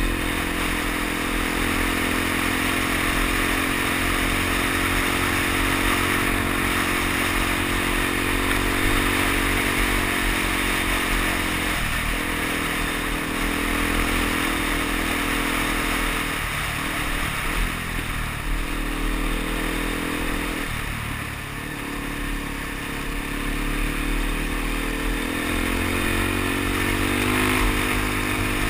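Suzuki DR-Z dual-sport motorcycle's single-cylinder four-stroke engine running under way, its pitch rising and falling with the throttle and easing off briefly a few times in the second half. Under it runs a steady hiss of wind and road noise from the gravel surface.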